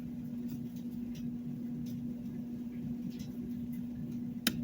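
Faint scattered ticks and clicks of small model-locomotive parts and wires being handled, with one sharper click near the end, over a steady low electrical hum.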